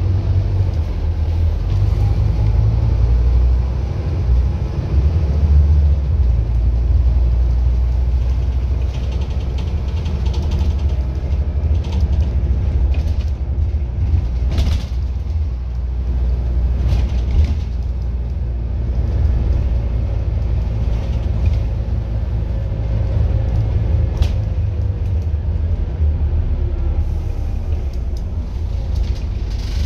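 Scania N230UD double-decker bus's five-cylinder diesel engine and driveline heard from the upper deck as the bus drives along: a steady low rumble with a faint whine that rises and falls as it speeds up and slows. A few sharp knocks come from the bus around the middle.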